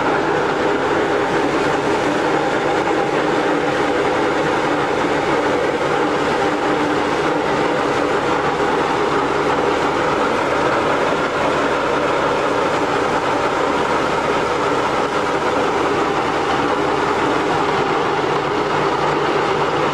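Tandem road roller's engine running steadily at an even pitch, with a loud mechanical hum that does not change.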